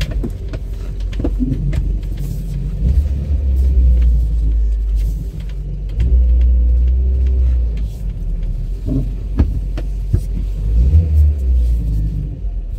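Renault 12 on the move, heard from inside the cabin: the engine running with a deep road rumble that swells louder twice.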